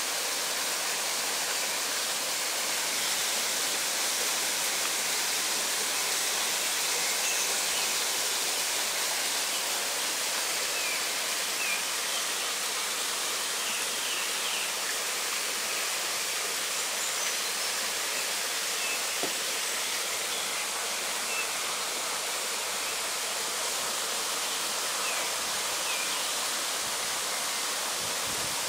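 Steady, even hiss with no distinct events, with a rushing, water-like quality.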